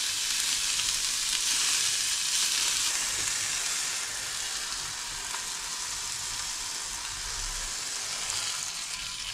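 Bonito fillets sizzling as they fry in a little oil in a non-stick pan, a steady hiss that eases slightly about four seconds in.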